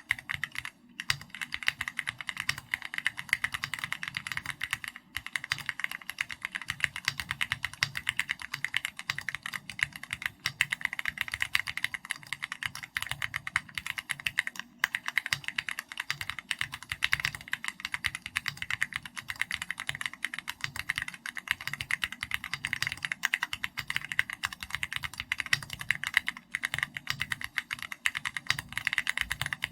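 Typing on a custom mechanical keyboard with an SPM AL66B housing, Keychron Red linear switches and XVX 3D comic-style keycaps: a fast, steady stream of keystrokes with a few brief pauses.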